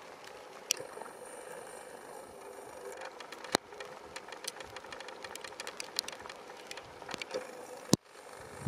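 A steady low hiss with scattered sharp clicks and ticks; the loudest click comes near the end.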